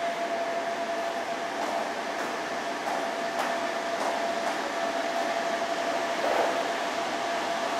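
Steady hiss of air conditioning in a shop, with a faint high whine held at one pitch throughout.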